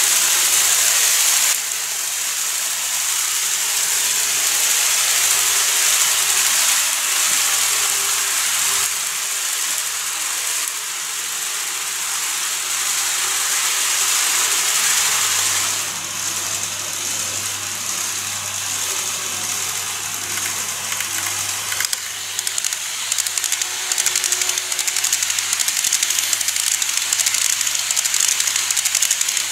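N-gauge electric model trains running on the track: a steady rushing hiss of wheels and motors with a faint low hum, turning into rapid, dense clicking in the last third as a train runs close by.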